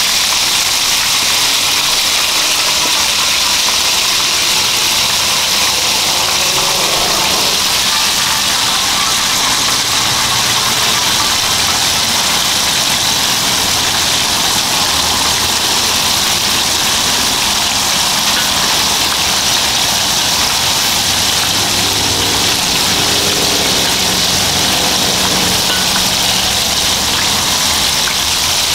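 Steady roar of an outdoor gas burner running at full flame under a wok, with food frying in the wok giving a continuous loud sizzle as it is stirred.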